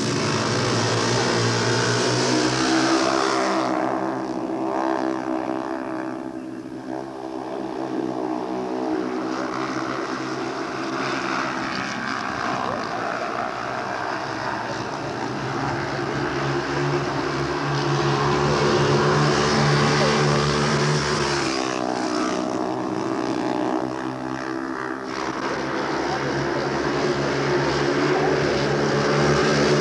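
Several speedway motorcycles racing, their 500 cc single-cylinder engines running together in a steady, loud drone. Twice the note falls and climbs again as the riders throttle through the bends.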